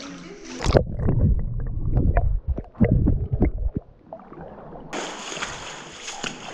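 Water splashing and gurgling from a snorkeler swimming in spring water: about three seconds of heavy, muffled, irregular splashes, then lighter sloshing for the rest.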